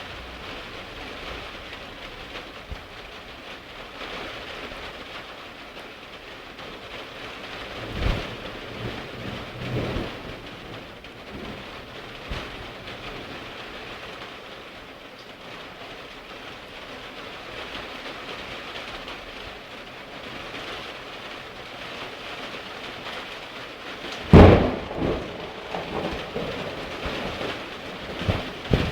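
Heavy rain falling steadily in a strong thunderstorm, with two shorter thunder strikes about eight and ten seconds in. Near the end a sudden, very loud thunderclap cracks and rolls on for a few seconds.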